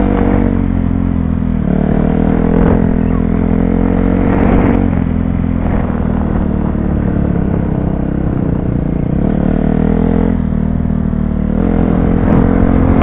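Dirt bike engine running hard on a trail ride, its note rising and falling several times as the rider works the throttle.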